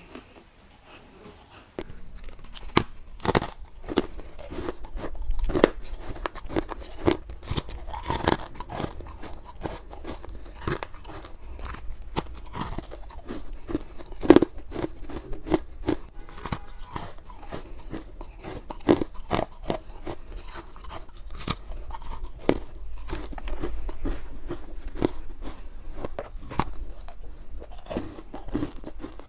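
Freezer frost being bitten off and chewed, with crisp crunching and crackling that starts about two seconds in and goes on in quick irregular bites.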